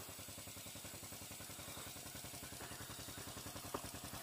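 A small engine idling steadily, heard faintly as a rapid, even pulse, with a light click near the end.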